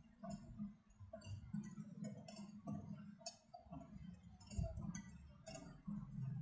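Wire whisk stirring milk in a ceramic bowl, its metal tines clicking faintly and irregularly against the bowl, about two clicks a second.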